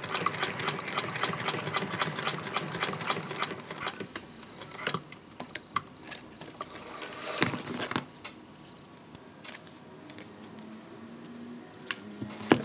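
Singer 201K hand-crank sewing machine stitching through thick folded material: a rapid, even mechanical clatter of needle and works that stops about four seconds in. After it come scattered clicks and a brief rustle of handling, with one sharp click near the end.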